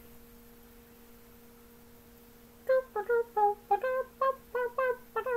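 A faint steady electrical hum, then about two and a half seconds in a voice starts singing a wordless tune in short, bouncy notes, two or three a second.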